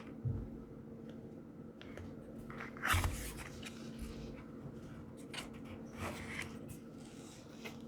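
Irregular scrapes and light knocks over a steady low electrical hum, the loudest scrape about three seconds in.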